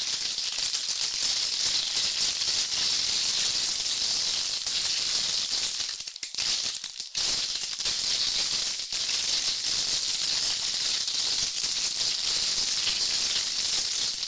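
A steady high hiss with a fine rattle to it, dipping briefly about six seconds in.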